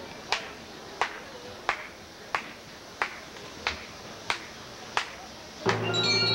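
Drumsticks clicking out a steady tempo, about three sharp clicks every two seconds, a count-off that keeps time for the marching band. Near the end the full band comes in, loud, with sustained brass chords.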